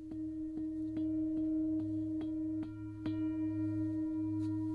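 Heavy, thick-walled 12-inch singing bowl (a green Tara bowl) rubbed into a sustained ring by light, rapid strokes of a soft fleece-headed, flexible-shaft mallet, about two to three strokes a second. The strokes stop about three seconds in and the bowl keeps ringing with a steady, deep hum.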